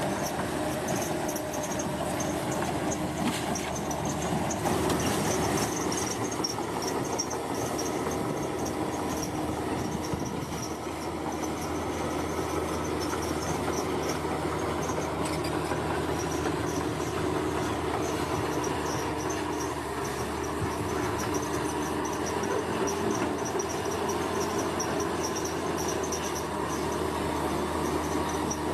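Komatsu bulldozer working, its diesel engine running steadily with the clatter of its tracks. Insects trill at a high pitch.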